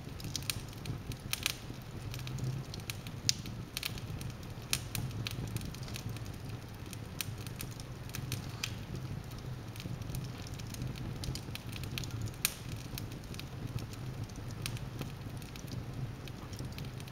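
Wood logs burning in an open fireplace: a steady low rumble of flame with irregular sharp crackles and pops throughout, a couple of louder snaps about three seconds in and about twelve seconds in.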